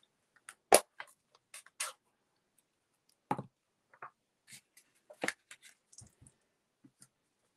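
Scattered clicks and knocks of stamping supplies handled and set down on a desk: a plastic-cased ink pad and a clear acrylic stamp block with a rubber stamp. The sharpest knock comes less than a second in.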